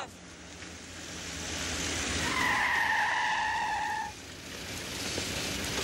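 A car comes on with a swelling rush, then its tyres squeal for about two seconds as it brakes hard to a stop.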